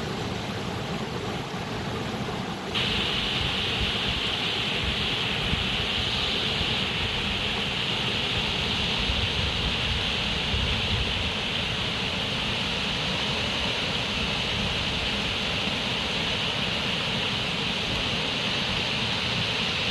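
Steady rushing of running water. About three seconds in, the sound changes abruptly, becoming louder and more hissy, and then holds steady.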